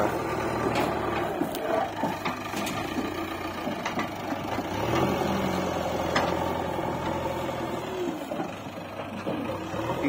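JCB backhoe loader's diesel engine running steadily as its front loader arm works, with a few sharp knocks. The engine note swells briefly about five seconds in.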